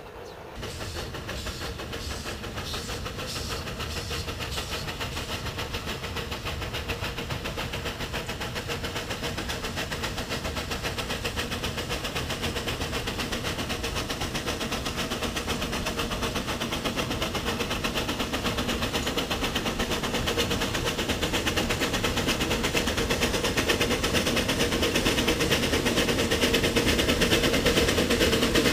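Steam locomotive working steadily, a rapid unbroken run of exhaust beats that grows gradually louder as it approaches.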